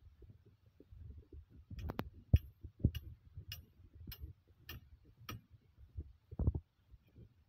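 Footsteps across a steel rebar mesh: a run of about seven sharp metallic clicks, roughly one every half second, starting about two seconds in, over a low rumble. A dull thump comes near the end.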